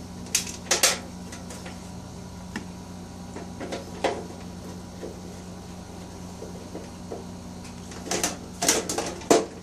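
Clicks, taps and scrapes of a screwdriver and a metal panel-board cover plate being fitted and screwed down, with a cluster of louder knocks near the end. A steady low hum runs underneath.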